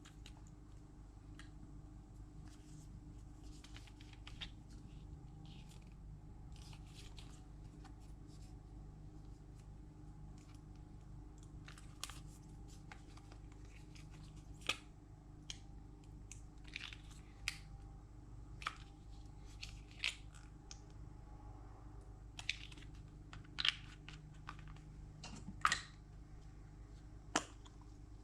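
Slime being worked by hand, giving scattered sticky clicks and snaps at irregular intervals, more often in the second half, over a steady low hum.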